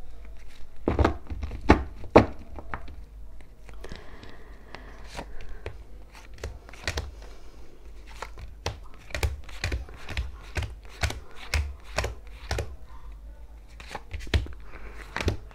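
Tarot cards being dealt into piles on a cloth-covered table: a long, uneven run of sharp slaps and taps as cards land, with the loudest couple a little after one and two seconds in.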